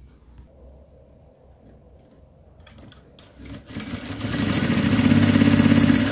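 ZOJE industrial sewing machine stitching a seam in cotton fabric: it starts about three and a half seconds in, speeds up over a second and runs at a fast, even stitching rhythm.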